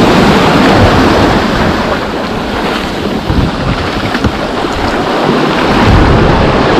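Sea surf washing and foaming over rounded cobbles at the foot of a rock cliff, with wind buffeting the microphone.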